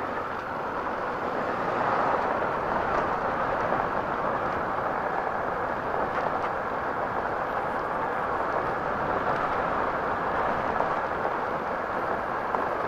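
Honda XRE 300 motorcycle riding down a cobblestone street: a steady rushing of wind and tyre noise on the cobbles at the camera microphone. It grows louder over the first two seconds as the bike picks up speed, then holds steady.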